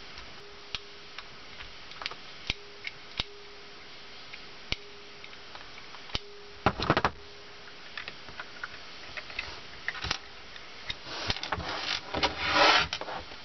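Leatherman multi-tool screwdriver turning small screws out of a plastic solar garden light housing, with light scattered clicks. About seven seconds in there is a brief louder clatter, and near the end a busier rattle of plastic parts as the cover is worked off.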